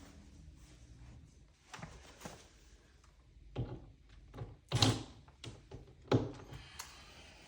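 A dishwasher being worked on by hand, giving a run of irregular knocks and clunks. The two loudest thunks come about five and six seconds in.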